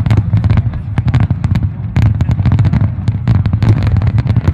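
Fireworks display: aerial shells bursting in a rapid, irregular string of bangs and crackles, many a second, over a steady low rumble.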